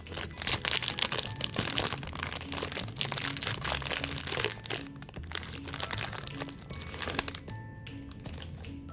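Crinkling of snack packaging being handled and unwrapped, a dense run of sharp crackles over background music; the crinkling stops about seven seconds in, leaving only the music.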